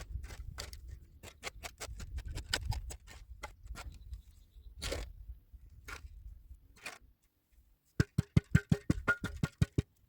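Irregular clicks and handling knocks over a low rumble, then, after a short pause, a quick run of sharp ringing knocks, about five a second, for nearly two seconds.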